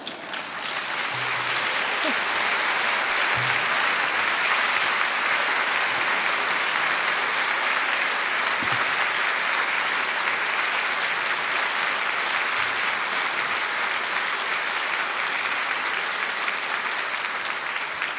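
Audience applauding steadily, building up over the first second and easing off a little toward the end.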